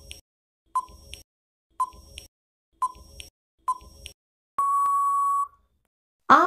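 Countdown-timer sound effect: a short beep with a click about once a second, four or five times, then one longer steady beep lasting about a second, marking that the answer time is up.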